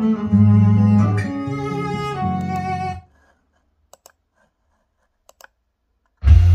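Music played through Canton Ergo floor-standing loudspeakers and picked up in the room. The closing bars of a ballad with strings and guitar stop about three seconds in, followed by a near-silent gap with a couple of faint clicks. Near the end a new track starts loud, with heavy bass.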